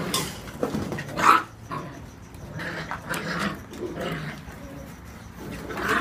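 Seven-week-old whippet puppies growling and yapping in rough play, with a louder yap about a second in.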